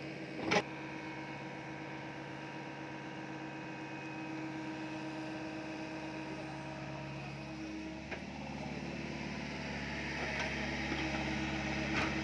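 SDLG mini excavator's diesel engine running steadily while it digs, its note shifting about eight seconds in and growing louder near the end. A sharp knock about half a second in.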